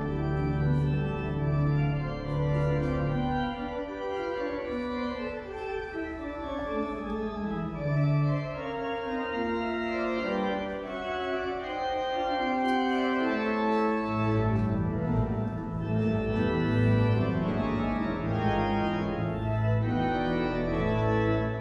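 Church organ playing sustained chords and moving lines, with deep pedal bass notes that drop out about four seconds in and come back about fourteen seconds in.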